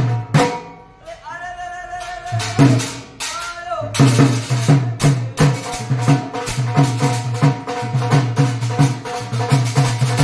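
Live Rajasthani folk music: a hand-played dholak drum beats a quick, steady rhythm over steady held notes. About half a second in the drum drops out while a voice sings a short gliding line, and about four seconds in the drumming comes back in.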